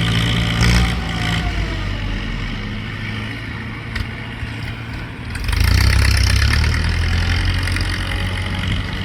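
Ford 6640 tractor's diesel engine running steadily while pushing soil. It eases off about a second and a half in, then comes up loud again about five and a half seconds in as it works under load.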